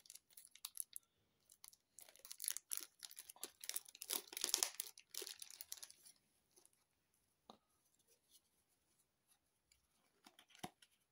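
Faint rustling and crinkling of thin clear plastic card sleeves as trading cards are worked out of them, densest from about two to six seconds in, then a few light taps of cards being handled.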